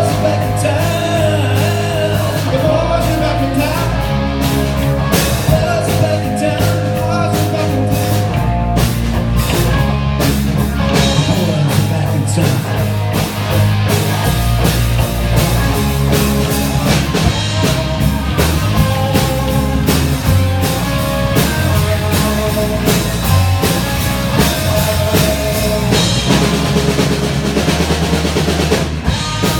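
Rock music with drum kit and guitar, and a faint singing voice.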